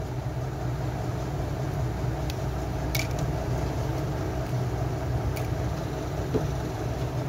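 A steady low mechanical hum, with two faint small clicks about three seconds and five seconds in.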